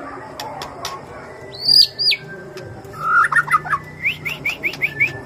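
White-rumped shama singing: a loud, high whistled note that rises and falls about two seconds in, then a quick jumble of notes followed by a run of about six short rising notes a little after four seconds.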